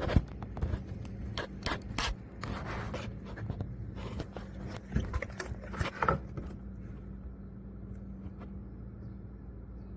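A hand and fingers rubbing and scraping against engine parts under the intake manifold, with irregular clicks and knocks. The handling stops about six and a half seconds in, leaving a steady low hum.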